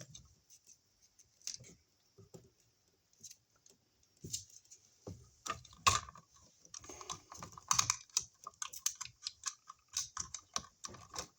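Irregular clicks and scrapes of hand tools and electrical wire being stripped and handled at a wall outlet box, sparse at first and busier from about halfway on.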